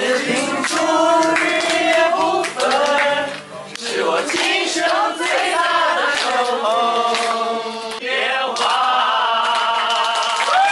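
A Mandarin pop song: singing voices carrying a melody over backing music.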